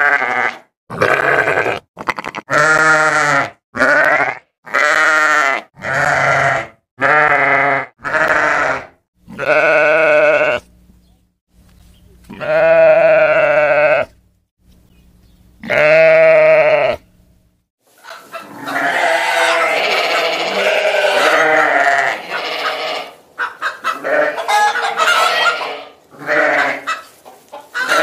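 Sheep bleating: a run of short bleats about one a second, then two longer bleats after a pause, then many sheep bleating over one another for the last ten seconds or so.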